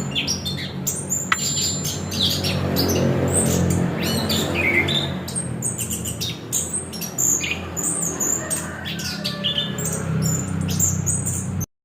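Chestnut-capped thrush (anis kembang) singing a rapid, varied song of short chirps and whistles, over a low steady hum. The sound cuts off suddenly near the end.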